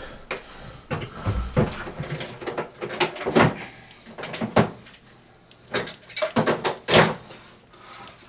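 Handling noise of tools and gear: an irregular string of knocks, clicks and clatters, loudest about three seconds in and again near the end.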